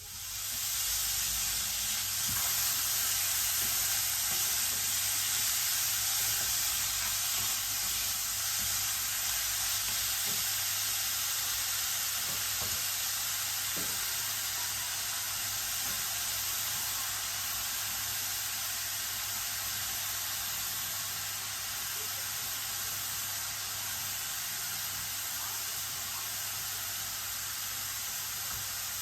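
Food frying in cooking oil in a pan, a steady sizzle that starts suddenly, with a few faint knocks about halfway through.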